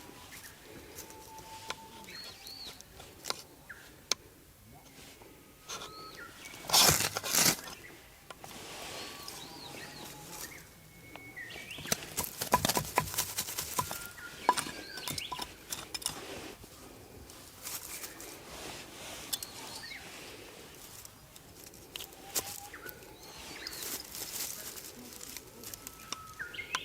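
Birds chirping and calling in the background, with a few loud bursts of scraping or rustling noise in the foreground.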